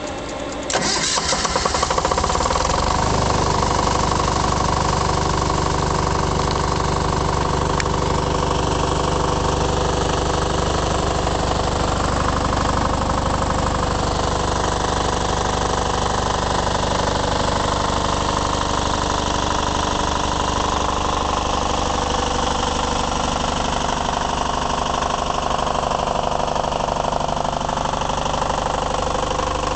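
Hollingsworth MEP-002A 5 kW military diesel generator being started: the engine cranks briefly, catches under a second in, and then runs steadily at constant speed, carrying two work lights as a light load.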